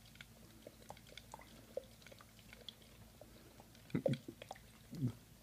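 A husky's teeth and tongue working against a drinking glass: faint scattered clicks and wet mouth sounds, with two louder short sounds about a second apart near the end.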